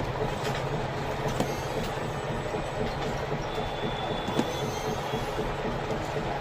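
Steady rumbling noise of a moving vehicle, with scattered short clicks and knocks.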